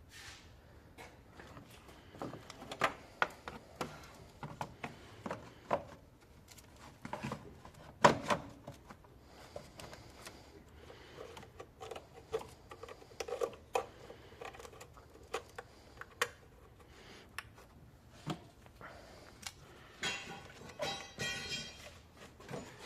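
Irregular clicks, knocks and clinks of tools and parts being handled, with one sharp knock about eight seconds in and a short rapid rattling buzz near the end.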